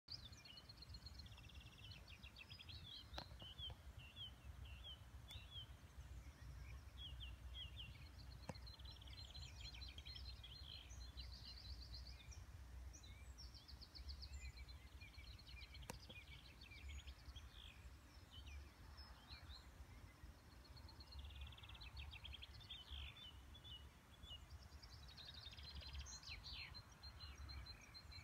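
Several small songbirds singing faintly, with overlapping quick trills and chirps throughout, over a low steady rumble. A few faint clicks.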